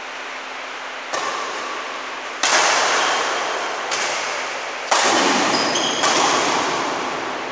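Badminton rackets striking a shuttlecock in a rally: five sharp hits about a second apart, the first softer, each trailing off in the hall's echo.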